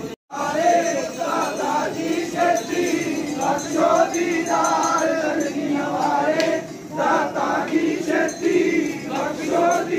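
A group singing a Punjabi Sikh devotional hymn together in one continuous line of melody. The sound cuts out briefly just after the start.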